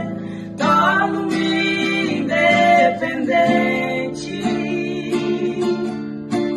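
A woman singing a gospel worship song to a strummed acoustic guitar, with short breaks between sung phrases.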